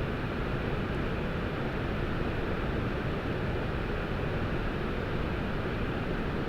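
Waterfall in powerful flow, its jets pounding the ground: a steady, even rush of falling water.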